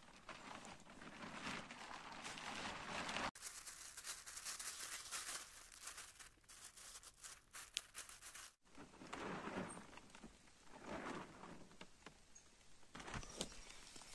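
Black plastic tarp rustling and crinkling in several bursts as it is handled and spread over a stick frame.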